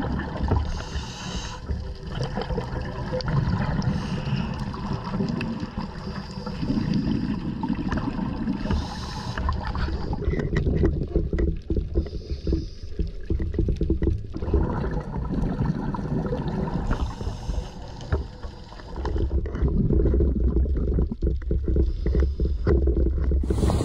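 Muffled underwater noise picked up by a submerged camera: a steady low rumble of moving water with scattered clicks and knocks, heaviest about halfway through.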